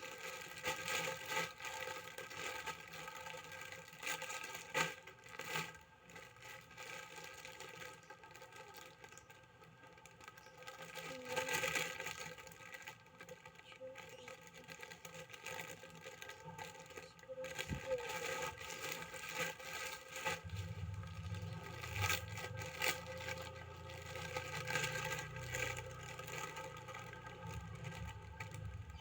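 Plastic packaging rustling and crinkling in irregular bursts as a parcel is opened and its contents handled, over a steady background hum.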